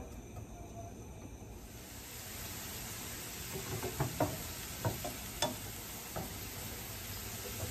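Diced onions and green chillies sizzling in hot oil in a non-stick frying pan, a steady hiss that sets in about two seconds in. A wooden spatula stirring them knocks and scrapes against the pan several times in the middle.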